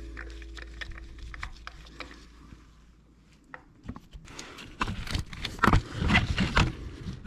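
The last notes of background music die away. After a short hush, irregular clicks, knocks and rustling start about four and a half seconds in and grow busier toward the end, like hands handling tools and parts at close range.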